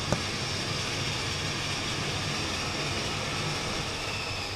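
Twin-engine turboprop airliner's engines running as it taxis in at low power: a steady rumble with a high turbine whine that sags slowly in pitch. A brief click right at the start.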